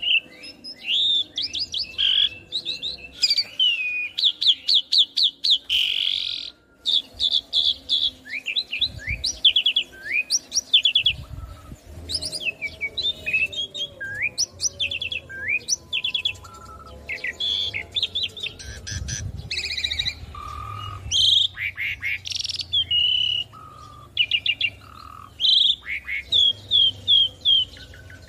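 Asian pied starling singing a long, varied song of chirps, slurred whistles and quick rattling trills, with notes packed closely together and a brief pause about six seconds in.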